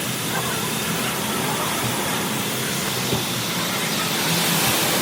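Automatic car wash machine running with a steady hiss, growing a little louder and brighter near the end.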